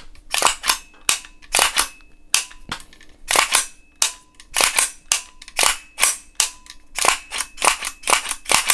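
Airsoft rifle, a BRN-180S upper on a Tokyo Marui lower, being worked by hand with no magazine in: a steady string of sharp mechanical clicks, two or three a second, as the trigger is pulled and the action cycled to check that the freshly assembled receivers work together.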